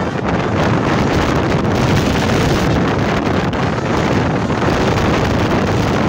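Wind buffeting a phone's microphone held out of a moving vehicle's window, mixed with steady road and engine noise.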